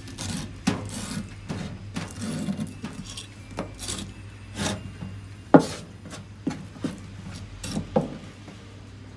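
Kitchen knife scraping and slicing through a conger eel's flesh and backbone against a wooden cutting board, in short rasping strokes. Several sharp knocks of the blade on the board, the loudest a little past halfway.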